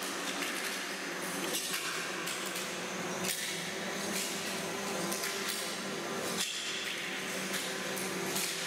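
Broken ceramic shards clinking and crunching underfoot as people step across a floor covered with them: scattered sharp, irregular clinks over a steady low hum.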